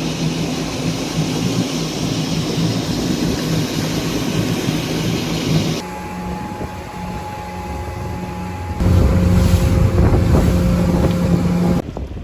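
Motorboat engine running with wind buffeting the microphone, in several short clips cut together: the sound changes abruptly about six seconds in, again about nine seconds in, and near the end.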